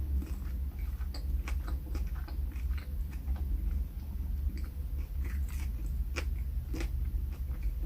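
Close-up mouth sounds of a person chewing and biting into a Subway sandwich: irregular wet smacks and soft crunches, over a steady low hum.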